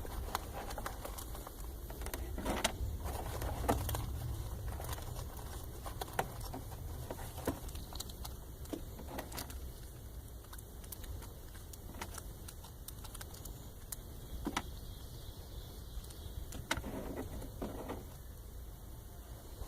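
Scattered light clicks, rattles and knocks of small items being handled and sorted, over a low steady rumble.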